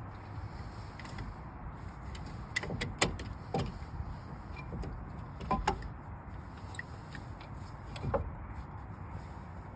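Scattered metal clicks, knocks and creaks of a hand tool working the brake caliper pistons back into their bores, a few sharper knocks standing out, over a low steady background hum.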